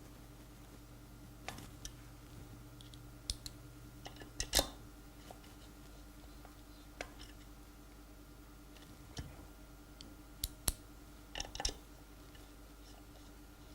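Scattered clicks and taps of a hand tool working the Torx screws that fasten a new adapter ring onto a vacuum block, loudest about four and a half seconds in, with a cluster of clicks near the end. A faint low hum runs underneath.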